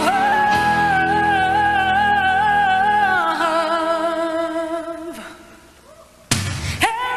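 Female solo singer with band, live: she holds a long high note with vibrato that falls in pitch and fades out between about three and five seconds in. After a short hush the band comes back in with a sudden loud hit, and she slides up into another held high note.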